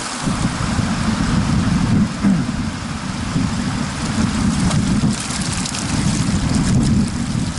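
Wind buffeting the camera's microphone: an uneven low rumble over a steady hiss.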